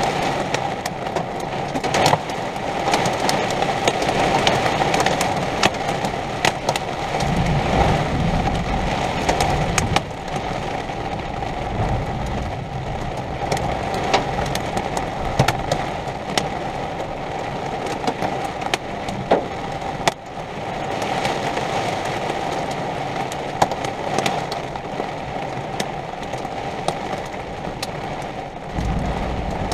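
Heavy thunderstorm rain: a steady loud hiss peppered with many sharp individual strikes, with a few low swells along the way.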